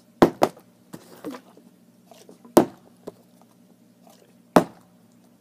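Partly filled plastic water bottle being flipped and landing upside down on its cap with sharp knocks: a quick double knock near the start, then single landings about two and a half and four and a half seconds in.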